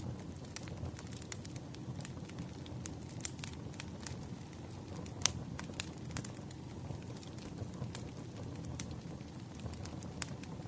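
Campfire crackling: a steady low rush of burning wood with frequent sharp pops and snaps, a few louder pops about five seconds in and near the end.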